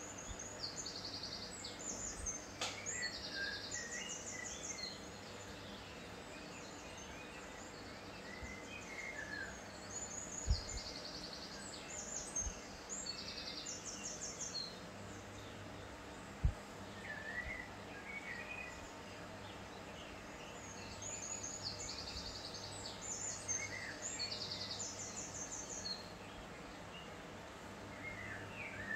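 Birds singing in high, rapid trills and short chirps, in three bouts, over a steady low hum, with a couple of soft knocks.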